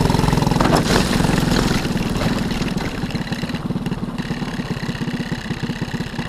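Racing kart engine dropping from racing speed to a pulsing idle as the kart pulls off the track, with a brief rough burst about a second in. The driver has just broken a tire bead.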